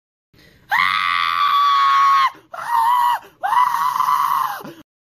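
A person screaming three times: one long scream, then two shorter ones.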